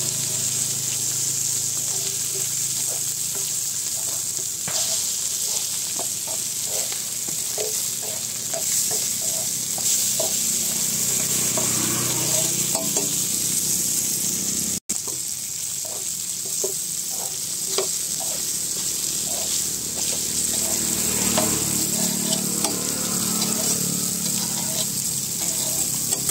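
Whole tilapia frying in oil on a large flat iron griddle: a steady sizzle, with short scrapes and taps of a metal spatula on the pan scattered through it.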